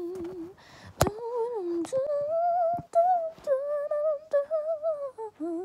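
A girl humming a wordless tune, moving between held notes with a slight waver. There is a sharp click about a second in.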